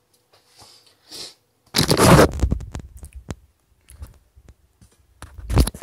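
Handling noise from a handheld camera being moved about: a loud rubbing scrape about two seconds in, a few light clicks, and another loud scuff near the end.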